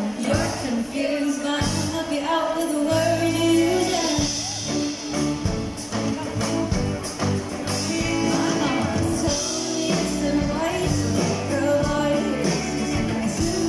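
Live pop band playing: a female singer with acoustic guitar, backed by bass, electric guitar and drums, heard through the stage PA from the audience.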